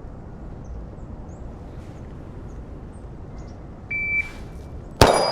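A shot timer's start beep, one short steady high tone about four seconds in, then about a second later a single loud 9mm shot from a Glock 43X pistol, with ringing after it.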